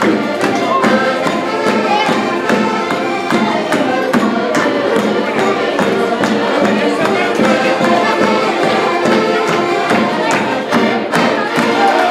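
Portuguese folk band playing live, led by accordions over a steady beat.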